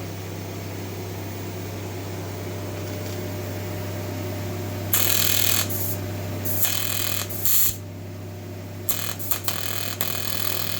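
TIG welding arc struck in short bursts of harsh, crackling hiss, about a second each, starting about five seconds in, over the steady hum of the welding machine and its water cooler. The shielding gas is not flowing, so the arc runs unshielded.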